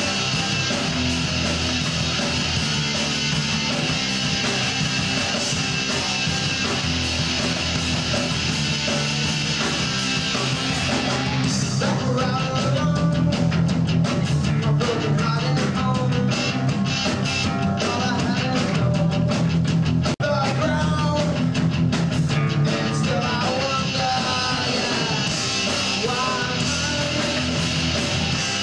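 Live rock band playing with electric guitars and a drum kit, loud and full throughout. The playing gets louder and busier about twelve seconds in.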